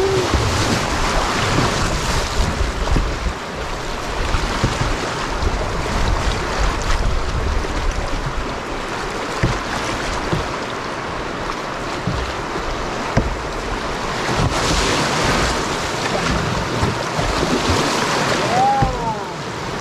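Rushing whitewater of a rapid around a canoe being paddled through it, a steady loud churning hiss that swells about two-thirds of the way through, with wind rumbling on the microphone.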